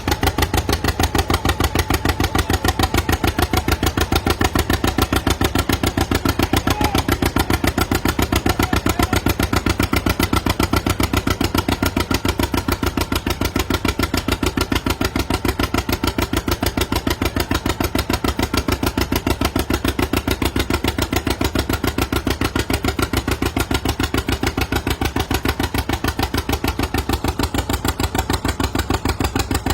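Antique tractor engine running steadily with a fast, even firing beat that neither rises nor falls.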